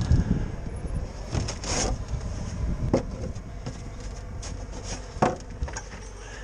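Strong wind buffeting the microphone in a low, steady rumble, with a few sharp knocks and clicks, the loudest about three and five seconds in.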